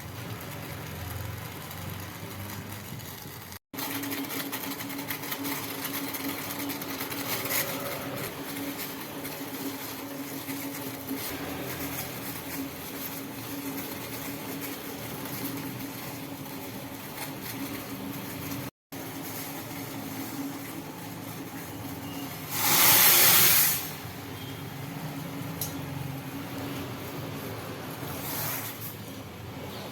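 A steady mechanical hum with a faint hiss, broken by a loud rushing noise lasting about a second and a half, about two-thirds of the way through, and a fainter one near the end.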